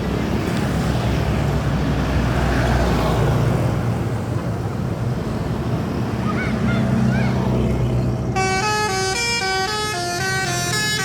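Bus engine running with a steady low rumble; about eight seconds in, a Basuri multi-tone 'telolet' horn starts playing a quick tune of rapidly changing notes.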